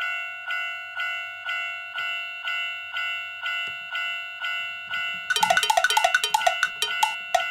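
Electronic Japanese railroad crossing warning bell ("kan-kan") from a 1/24-scale toy crossing's sound unit, ringing steadily at about two strokes a second. Near the end a quick flurry of clicks and short notes briefly sounds over it.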